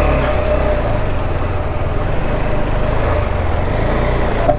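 Motorcycle engine running steadily at low revs as the bike rolls slowly at walking pace.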